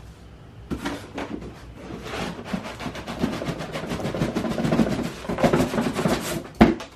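Parcel packaging rustling and crinkling as it is handled and searched through by hand, growing louder, then a sharp knock near the end.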